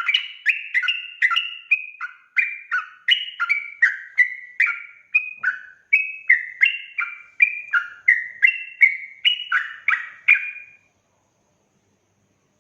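Yellow-vented bulbul (trucuk) singing a rapid, continuous run of bubbly chirping notes, about three a second, which stops near the end.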